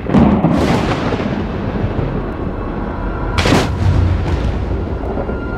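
Cinematic trailer sound design: a deep boom at the start over a continuous low rumble, with whooshing sweeps about half a second in and a second loud hit about three and a half seconds in. Dark music begins to come in near the end.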